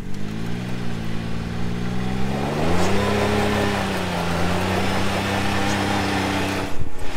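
Can-Am Maverick X3 Turbo RR side-by-side's turbocharged three-cylinder engine pulling under light throttle up a sandy climb. Its pitch rises about two and a half seconds in, then holds steady. Near the end a louder rough noise takes over.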